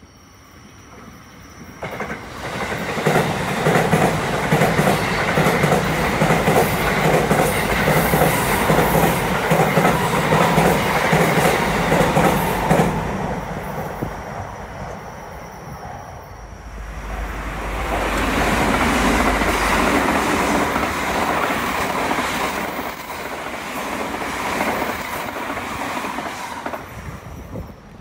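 Electric train crossing a steel truss railway bridge, its wheels clattering over the rail joints and the bridge deck. The rumble sets in about two seconds in and fades around thirteen seconds, then a second train's passage swells and dies away between about seventeen and twenty-six seconds.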